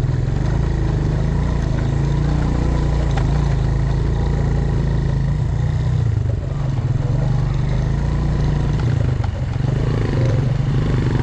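Motorcycle engine running steadily while riding, with road and wind noise; the level dips briefly twice, around six and nine seconds in.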